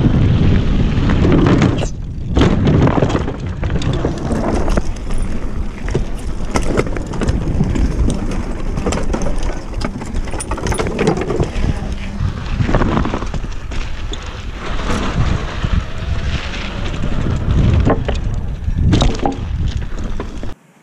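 Electric mountain bike ridden over dirt, pavers and a wooden ramp: heavy wind rumble on the microphone with the bike's frame and tyres rattling and knocking over the bumps. It cuts off abruptly near the end.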